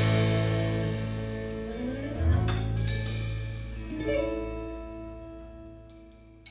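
A live rock band with keyboard, bass guitar and drum kit ends a song. Held chords ring out and fade, with fresh hits about two seconds in and again about four seconds in, each dying away.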